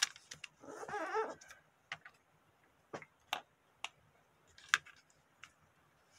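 Light taps and crinkles of folded origami paper being handled and laid flat on a cutting mat, with sharp clicks near the start, about three seconds in and near the five-second mark. About a second in, a short wavering whine sounds.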